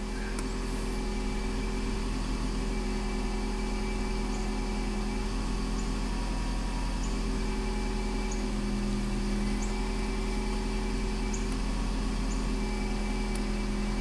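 2002 Toyota Highlander's 2.4-litre four-cylinder engine idling steadily at a fast idle of about 1,250 rpm, running smoothly with no misfire now that its faulty ignition coil has been replaced.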